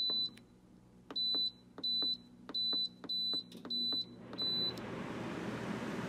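Midea portable air conditioner's control panel beeping: seven short, high beeps of the same pitch, the first as the power button is pressed, each with a faint click at its start. About five seconds in, the unit's fan starts with a steady rushing noise.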